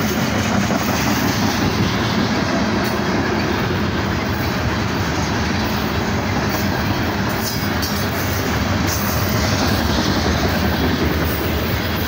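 Loaded coal hopper cars rolling past close by: a steady rumble and clatter of steel wheels on rail, with a few faint clicks.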